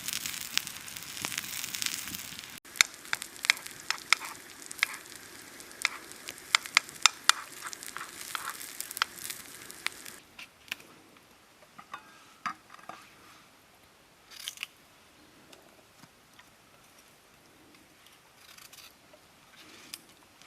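Campfire cooking: food sizzling over the fire with sharp crackles and pops, busiest in the first half. After about ten seconds it quietens to a few scattered pops.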